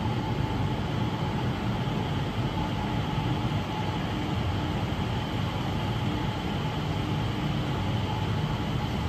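Skytrain people mover running along its elevated guideway: a steady rumble with a faint steady whine, over a general hall din.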